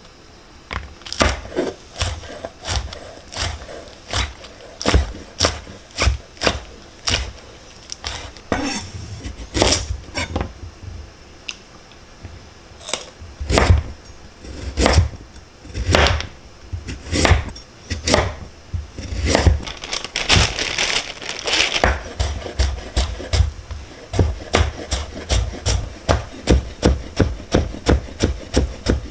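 Chef's knife chopping green chili peppers and a carrot on a wooden cutting board. Single, spaced knocks at first; from about twenty seconds in, a fast even run of cuts, about three or four a second, as the carrot is cut into thin strips.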